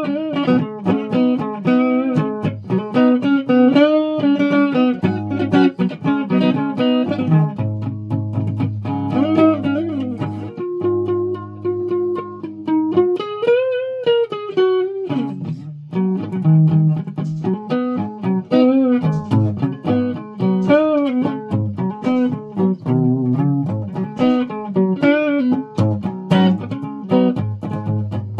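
Guitar picked note by note in a loose melody, with lower notes held underneath and a few notes bent or wavering in pitch.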